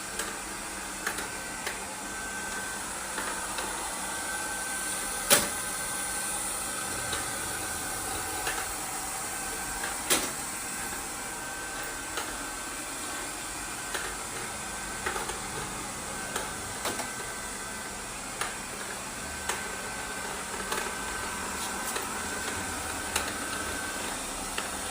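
IDALI LIFE robot vacuum cleaner running with a steady hiss and a faint high whine that comes and goes, broken by occasional sharp clicks, the loudest about five and ten seconds in.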